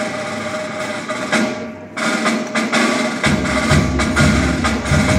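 School wind band playing live, brass and woodwinds with percussion. About three seconds in, the low bass parts come in strongly.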